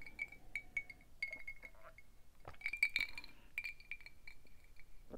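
Ice cubes clinking against the inside of a glass jar of drink as it is tipped up, sipped from and lowered: a scattered run of light clinks, each ringing briefly.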